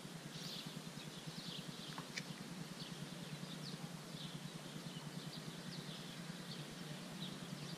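Small birds chirping, with many short, scattered calls over a steady outdoor hiss.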